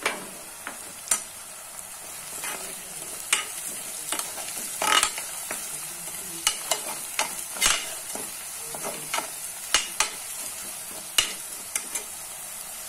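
Onion masala with salt and turmeric frying in oil in a pressure cooker, a steady sizzle, with irregular clinks and scrapes of a steel spoon stirring against the pot.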